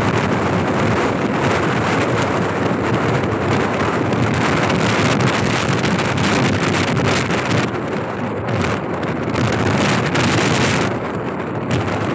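Wind rushing over the microphone of a motorcycle riding at road speed, a loud steady rush that eases in its upper range twice, about eight and eleven seconds in.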